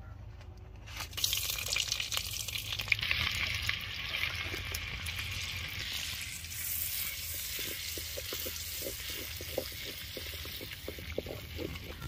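Hot cooking oil in a pan bursts into sizzling as food goes in about a second in, then fries steadily. A run of light ticks comes near the end.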